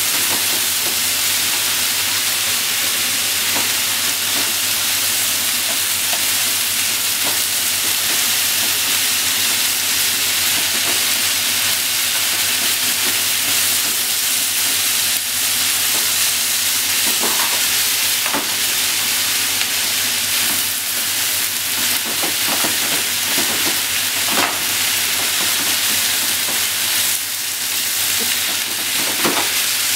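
Pork and vegetable stir-fry sizzling steadily in a frying pan as it is tossed with wooden chopsticks. Occasional knocks of the chopsticks against the pan come through, more often in the second half.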